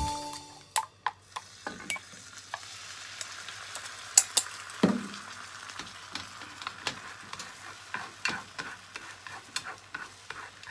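Beaten egg sizzling in a hot oiled rectangular tamagoyaki pan after being poured in, while long cooking chopsticks stir it, clicking and scraping against the pan. A few sharper knocks come near the middle.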